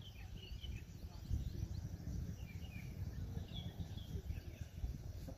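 Scattered faint bird chirps over a low, uneven rumble.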